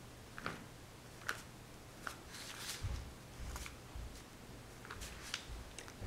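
Paintbrush working on paper: faint scratchy strokes and light taps, with one longer swish about halfway through, over a low steady hum.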